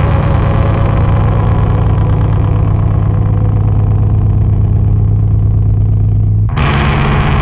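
Heavy metal music: a loud, sustained low drone whose upper tones slowly fade away, then the full, dense sound cuts back in suddenly about six and a half seconds in.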